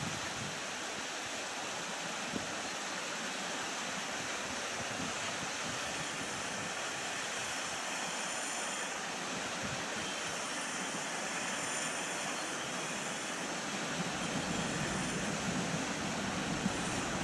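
Distant jet noise from a Boeing 737-500's CFM56 engines as the airliner lands and rolls out: a steady rushing sound that grows deeper and a little louder near the end.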